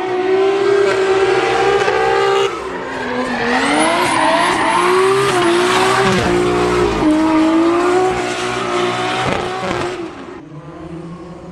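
A car engine running hard at high revs with tyre squeal; its pitch dips and climbs again twice. It fades out near the end.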